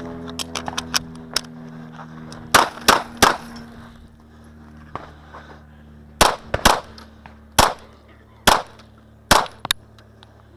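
9mm semi-automatic pistol fired in quick strings: three shots, a pause, three more, then four more spaced about a second apart. Struck steel plates ring and fade over the first few seconds, with fainter pops early on.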